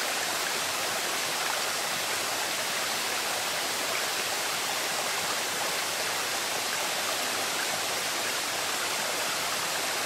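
Small mountain stream running over rocks, a steady, even rush of water.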